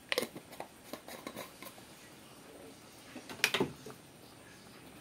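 Light clicks and knocks of kitchen utensils being handled: a run of small taps in the first couple of seconds, then a louder short clatter about three and a half seconds in.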